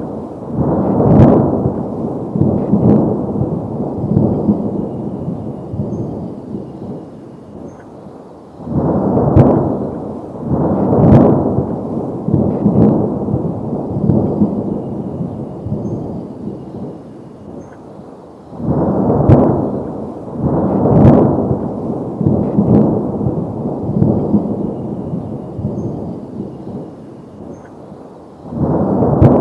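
Thunder-like booms: sharp cracks followed by a long rolling rumble that dies away, the same pattern coming back in a loop about every ten seconds, which points to an added sound effect.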